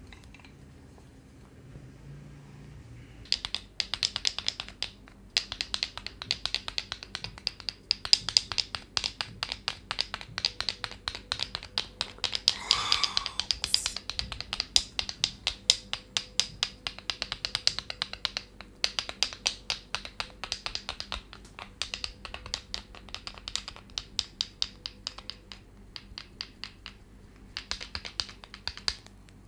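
Rapid percussive tapping of a head massage: sharp clicks, several a second, in runs with short pauses, starting a few seconds in. A brief rubbing swish comes midway.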